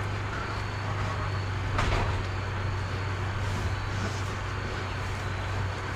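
A steady low hum, with a faint steady high-pitched tone above it and a brief clatter about two seconds in.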